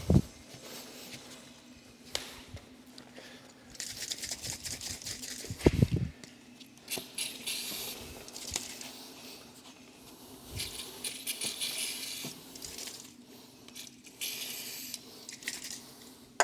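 Motorcycle rear sprocket being scrubbed clean: several bursts of scratchy, rattling rubbing a few seconds each, with a heavier knock about six seconds in.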